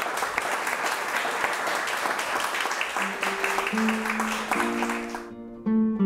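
Audience applauding, with plucked acoustic guitar music coming in about halfway through; the applause cuts off abruptly near the end, leaving the guitar.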